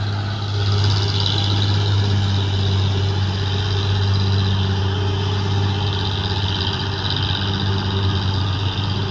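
Engines of heavily overloaded old Bedford trucks running steadily under load as they pull slowly ahead, an even, unbroken low drone.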